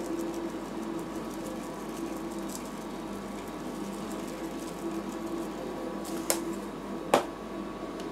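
Rolled-ice-cream machine's refrigeration unit humming steadily under its cold plate, with two sharp clicks a little before the end.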